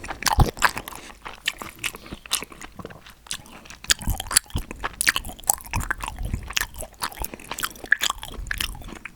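Close-miked chewing and biting of food, with irregular crunches and wet mouth clicks.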